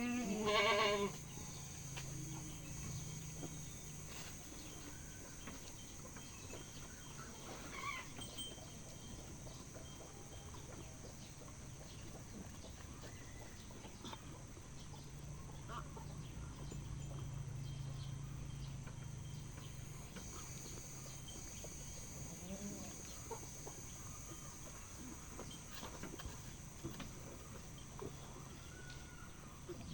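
Domestic chickens clucking in a farmyard. A loud short quavering call comes in the first second, and a low steady hum rises and fades twice.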